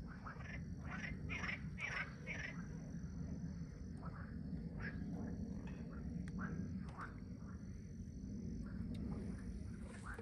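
Frogs croaking at a lake: a chorus of short, repeated calls, densest in the first couple of seconds, over a low steady rumble.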